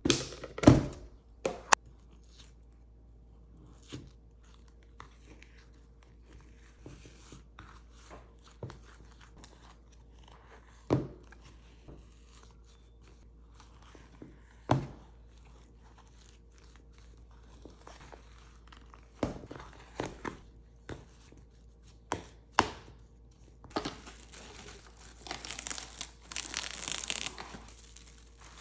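Kitchen handling sounds over a faint steady hum: scattered sharp knocks and clicks, a cluster of them right at the start and more spaced out later, then a few seconds of rustling near the end.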